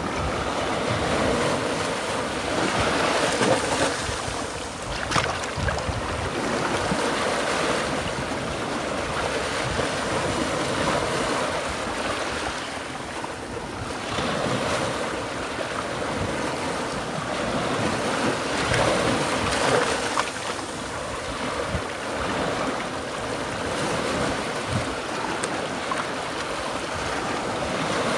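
Small Gulf of Mexico waves washing up over sand and around low rocks at the shoreline and draining back: a steady hiss of surf that swells and eases as each wave comes in.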